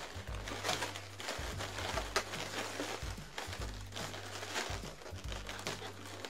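Long latex modelling balloons being handled and twisted, their rubber rubbing in irregular strokes, over background music with a repeating low bass line.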